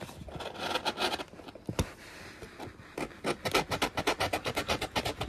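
Rubbing and scraping on wood, running into fast, even strokes about five a second from about three seconds in.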